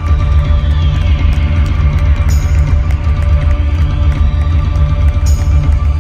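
Live rock band playing loudly through an arena sound system: a driving, rapidly repeated bass note under held keyboard tones, with a falling synth sweep about half a second in.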